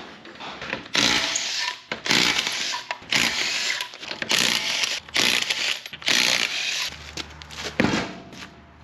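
A power tool run in about six short bursts of roughly a second each, with a steady low hum coming in near the end.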